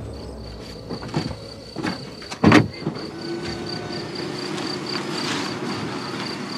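Car doors of a Toyota Prius patrol car slamming shut in a few thumps, the loudest about two and a half seconds in. The car then pulls away with a steady running sound.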